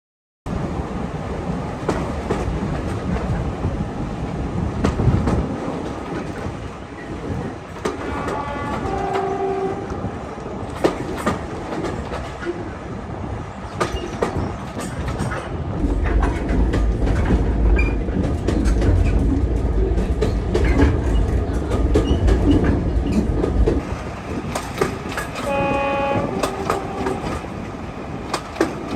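Train running on rails with rhythmic wheel clatter over the rail joints; its horn sounds briefly about nine seconds in and again near the end. A heavier low rumble builds in the middle stretch.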